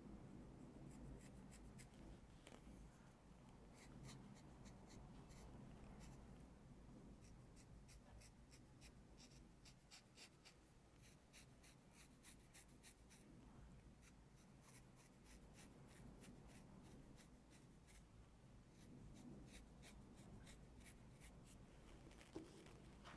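Faint, quick scratches of a dermaplaning blade scraping short strokes across facial skin and fine hair, many strokes one after another over a low room hum.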